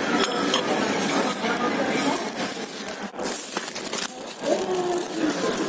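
Restaurant background noise: faint voices under a clatter of crockery and cutlery, with small clicks and clinks.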